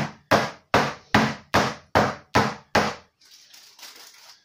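Cake tin of batter rapped down on the kitchen worktop eight times in a steady rhythm, about two and a half knocks a second, to knock the air bubbles out of the batter.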